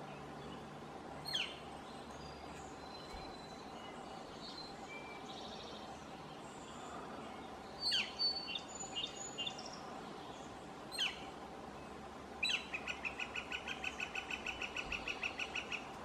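Northern Flicker calling: three loud single calls that slide steeply down in pitch, spaced several seconds apart, then a long, rapid, even series of short notes, about five or six a second, in the last few seconds.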